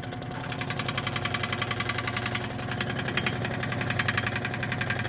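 Scroll saw running, its arm driving a pin-end sanding belt up and down in rapid, even strokes, with a scratchy rasp as the belt sands the edge of a puzzle piece, starting about half a second in.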